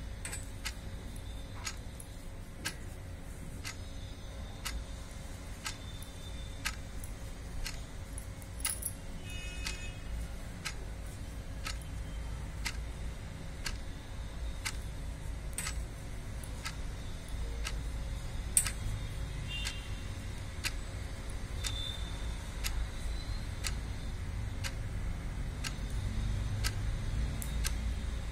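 Steady, evenly spaced ticking, about three ticks every two seconds, over a low background rumble.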